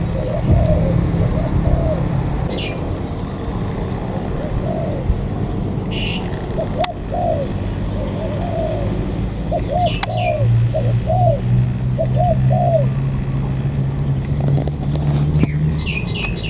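Spotted doves cooing in repeated short phrases of low rounded notes, with brief high chirps from small birds now and then and a low steady drone underneath.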